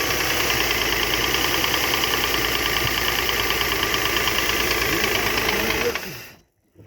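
Mercedes M272 V6 engine running with a rhythmic knock, then switched off about six seconds in. The knock comes from a badly scored cylinder wall, which an endoscope inspection later finds.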